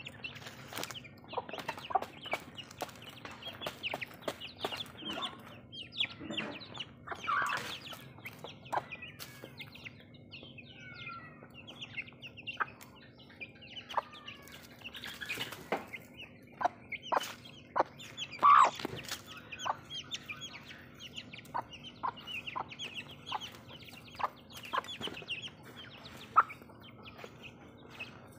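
A hen clucking and her young chicks peeping as they feed, many short calls overlapping without pause, with a couple of louder clucks standing out. A faint steady hum runs underneath.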